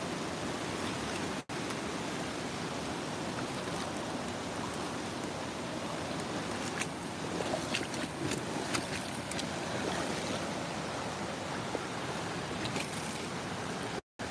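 Steady rush of flowing river floodwater, with a scatter of short sharp sounds in the middle. The sound drops out for an instant twice.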